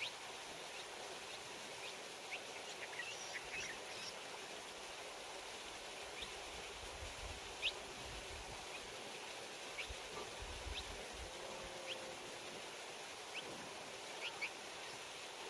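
Small birds giving short, high chirps, scattered singly and in little clusters, over a steady outdoor hiss. A faint low rumble comes in around the middle.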